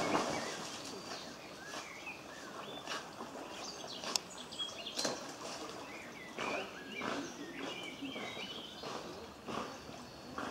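Water splashing as a black dog swims and paddles through a pond, loudest right at the start and then in irregular splashes. Small birds chirp and twitter throughout.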